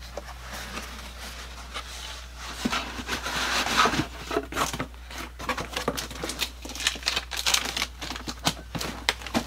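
Rummaging through boxed housewares in a bin: cardboard boxes and packaging rustling and crinkling, with scattered knocks and clunks.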